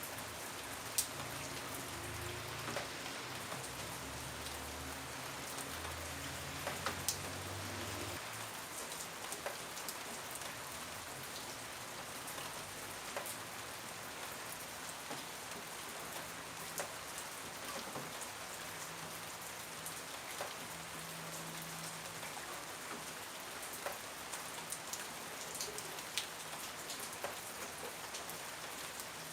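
Steady rain falling, an even hiss with individual drops ticking sharply here and there. A faint low hum sits under it for the first eight seconds.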